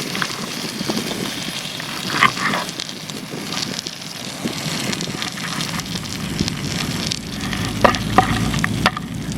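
Whole chicken frying in hot oil, a steady sizzle, with a few short knocks about two seconds in and near the end.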